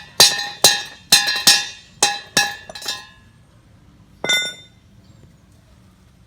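Hammer striking steel: about seven quick blows in the first three seconds, each ringing, then a single blow about a second later.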